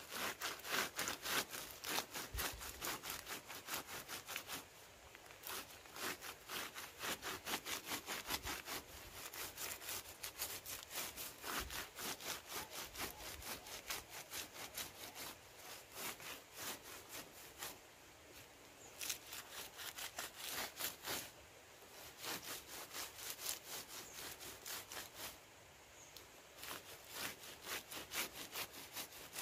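Hands rubbing and scraping along the strands of a kithul palm flower cluster, a quick run of dry strokes about four a second with short pauses. The flower is being rubbed with lime paste, a stage in preparing it for sap tapping.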